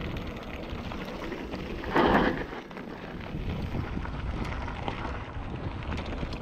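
Mountain bike rolling fast down a dirt and gravel trail: steady wind rush on the microphone over tyre noise and small rattles from the bike, with a brief louder burst of noise about two seconds in.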